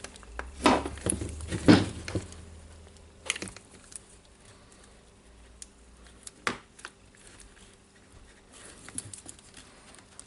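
Light clicks and knocks of small plastic and metal rotary-hammer parts being handled and fitted by hand, with a few louder knocks in the first two seconds and sparse, lighter clicks after.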